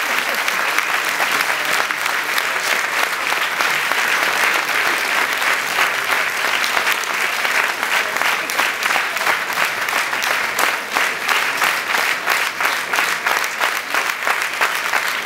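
Theatre audience applauding steadily, a dense clapping of many hands.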